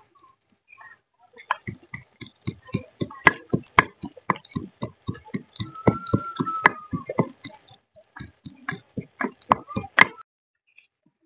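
Wooden pestle pounding in a small wooden mortar, in quick, even strokes about three or four a second, with a short break before it stops near the end.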